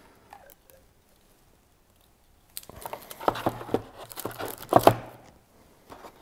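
Rustling and knocking of a cardboard box and its moulded pulp packaging tray as a bicycle crank arm is set into the tray and the box is handled. The rustle starts about two and a half seconds in, with the sharpest knock about five seconds in.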